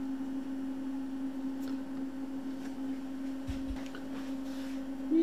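A steady electronic tone held on one pitch, with a few light clicks and a short low thump about three and a half seconds in.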